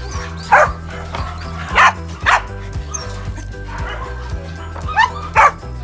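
Pembroke Welsh corgis barking: about five short single barks, two close together near the start and a quick pair near the end, over background music.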